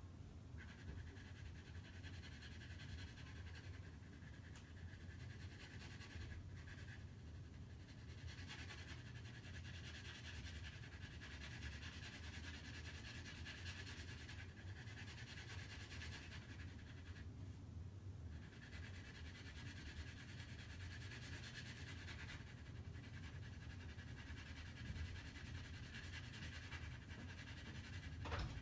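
Graphite pencil shading on drawing paper: faint scratchy strokes that stop briefly a few times, over a low steady hum.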